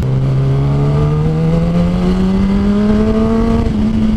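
2016 Kawasaki ZX-10R's inline-four engine, fitted with a Two Brothers aftermarket exhaust, accelerating under way: its note climbs steadily in pitch for about three and a half seconds, then levels off.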